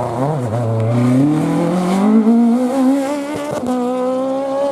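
Peugeot 306 Maxi rally car's four-cylinder engine at high revs: the pitch dips briefly, then climbs steadily as it accelerates and holds high, with a couple of short cracks about three and a half seconds in.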